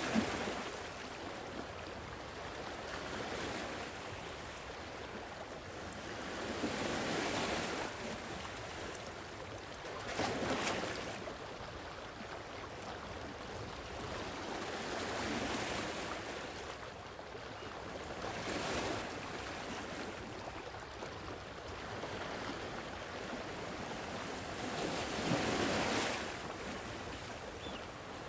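Sea waves breaking and washing on a shore, each swell rising and falling about every three to four seconds over a steady wash of surf.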